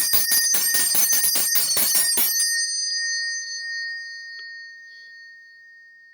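A tall hand bell shaken rapidly, its clapper striking about six times a second. About two and a half seconds in the shaking stops, and the bell rings on in one clear high tone that slowly fades.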